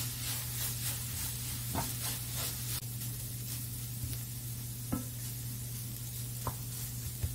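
Spatula stirring sticky glazed anchovies in a honeycomb-textured stainless pan, with a few sharp clicks against the pan. A faint sizzle from the still-hot pan, with the heat just turned off, drops away about three seconds in. A steady low hum runs underneath.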